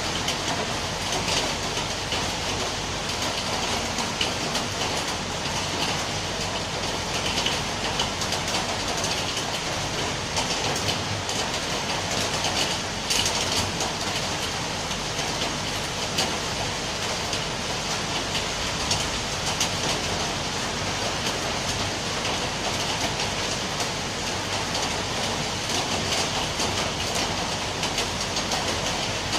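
Rain falling steadily: an even, dense hiss of drops.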